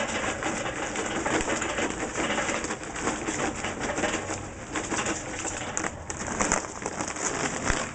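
Charcoal briquettes pouring from a paper bag into a metal kettle grill bowl, a continuous dense clatter of many small clicks.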